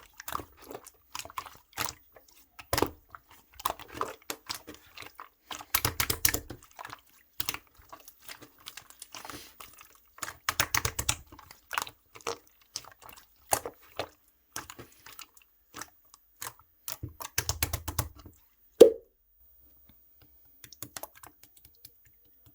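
Hands squishing and poking opaque slime: rapid wet clicks and small pops, in three denser bursts, then one louder thump about 19 seconds in.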